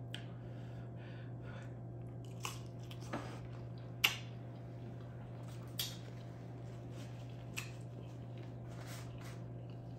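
A person biting and chewing andouille sausage, with a few sharp wet clicks and snaps, the loudest about four seconds in, over a steady low hum.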